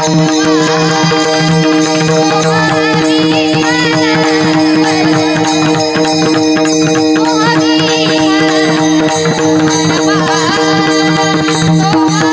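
Varkari kirtan music: a woman's voice singing a devotional melody over a steady harmonium-like drone, with pakhawaj drum strokes keeping a steady rhythm.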